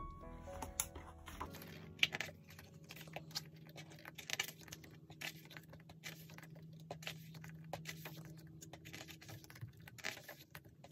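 Photobook pages being turned and handled, with scattered soft paper rustles and flaps over a faint steady hum. Background piano music stops about a second and a half in.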